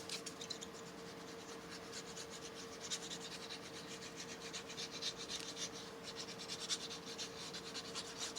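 Quick, repeated rubbing strokes on paper as glue is spread onto small paper flaps, with a faint steady hum underneath.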